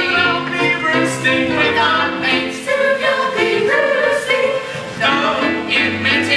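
Show-tune music: several voices singing together over instrumental accompaniment.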